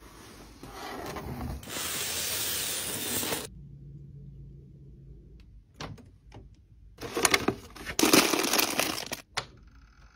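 Unboxing a pink mini fridge: cardboard box and packaging rustling and rubbing, then a couple of light clicks and two louder spells of rustling as the fridge door is opened and handled. Near the end a steady hum begins as the fridge is switched on.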